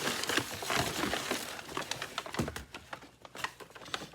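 Packing material rustling and crinkling by hand, with many small clicks and knocks, as a packed stick vacuum is unwrapped.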